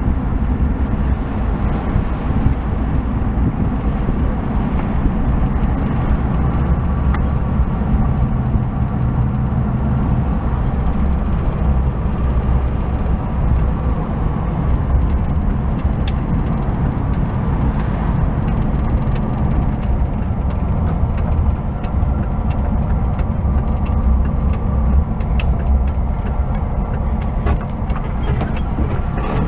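Old Volkswagen bus driving, heard from inside the cab: a steady, loud engine drone with road noise and a few light rattles and clicks.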